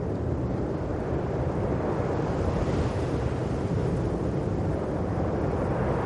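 Steady low rumbling noise, a dense even rumble with no distinct knocks or footsteps standing out.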